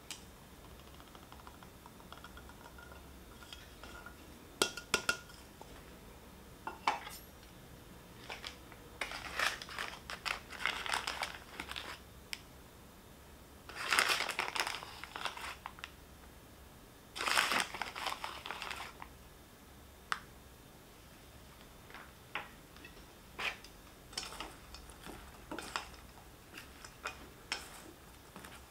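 Light kitchen handling at a stainless steel bowl: scattered knocks and clicks, and three rustling stretches in the middle as flour and potato starch go in over sliced vegetables. Light taps and ticks near the end as the vegetables are tossed with chopsticks.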